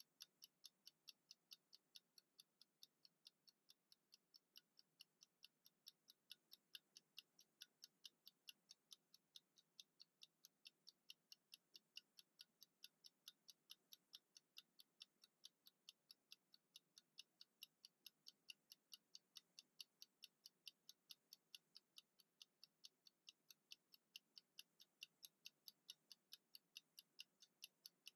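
Mechanical wind-up kitchen timer ticking steadily as it counts down, about three faint ticks a second.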